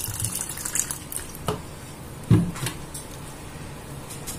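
Liquid poured from a plastic measuring cup into a glass bowl of flour batter for about the first second. Then a wire whisk stirs the thick batter, with a few clicks and knocks of the whisk against the glass bowl.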